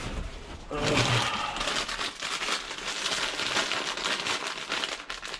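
Foil-lined snack-chip bags crinkling as they are handled and turned over, a dense, irregular rustle that runs on after about a second in.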